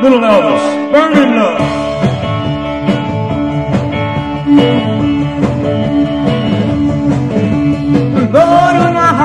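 A live rock band, with electric guitar, bass and drums, starts a new song abruptly with a steady beat; the bass and drums fill in about a second and a half in.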